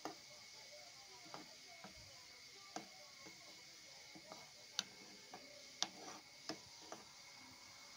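Metal spoon clinking and tapping irregularly against the side of a pan of boiling water while stirring, over faint bubbling. The loudest clinks come just before 5 s and just before 6 s.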